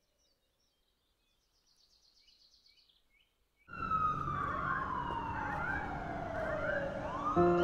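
Near silence, then about four seconds in a loud siren sets in over city noise, its wail falling steadily in pitch for about three seconds. A sustained music chord comes in near the end.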